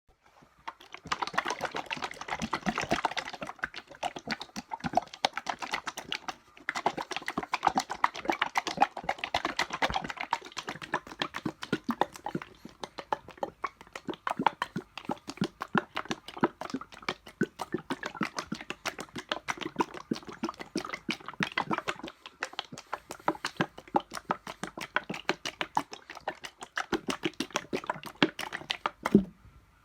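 Liquid wax being handled, giving a dense run of quick, irregular clicks and crackles. The sound comes in louder stretches during the first ten seconds, then carries on more evenly with a short lull a little past the middle.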